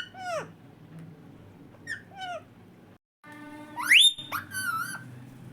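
Indian ringneck parrot calling: two short falling chirps, then a steeply rising whistle and a few wavering calls near the end.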